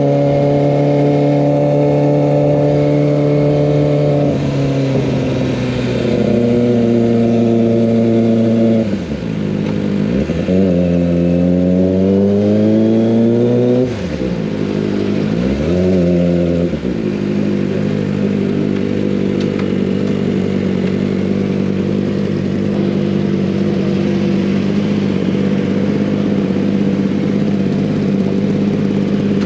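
Kawasaki ZX25R's 249 cc inline-four engine running through an Over Racing GP-RS full-system exhaust while riding. The engine speed holds steady, falls and climbs again three times around the middle, then settles into a steady cruise.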